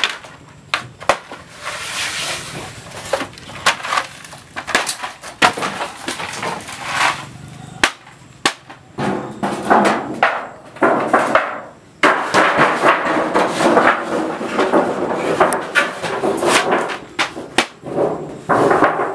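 Repeated knocks and clatter, then a large metal pot lid scraped and pushed about on the floor in rough, broken strokes for most of the second half.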